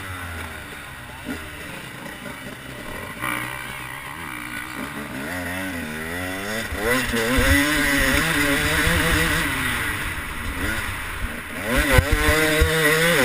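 KTM 250 two-stroke dirt bike engine, running at low revs for the first few seconds, then revving up and down as the bike pulls away and accelerates along the track. It gets louder in the second half, with a sharp burst of revs near the end.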